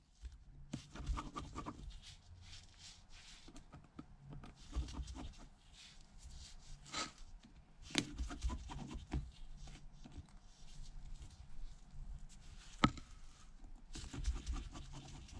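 Faint scratching and small clicks of a tri-point precision screwdriver turning the tiny screws on the metal shield plate of an iPhone SE screen assembly, with a few sharper ticks of the driver tip against the metal.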